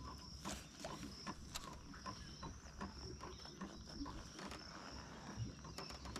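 Faint outdoor insect chorus: a steady, thin, high-pitched drone of crickets or cicadas, with scattered small clicks and taps over it.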